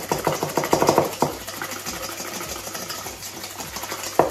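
Wire whisk beating egg yolks and sugar in a stainless steel bowl: a fast run of clicks against the metal, about six strokes a second, for the first second or so, then softer swishing, with one sharp knock near the end.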